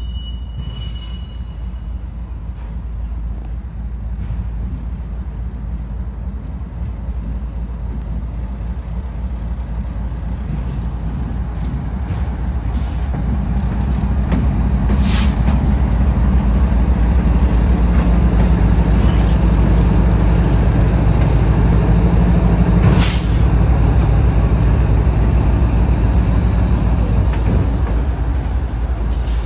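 Freight train's diesel locomotives approaching and passing close by. Their low engine rumble builds steadily and is loudest as they go by, with a couple of sharp clanks along the way.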